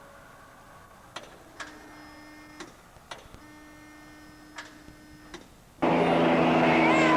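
Faint clicks over a low steady hum. About six seconds in, a Bellanca light airplane's propeller engine cuts in abruptly and loudly, its pitch slowly falling as it passes.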